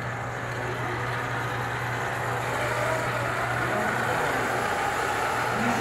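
FIRST Robotics Competition robot's electric drive motors and gearboxes whirring steadily as the robot drives across a tiled floor.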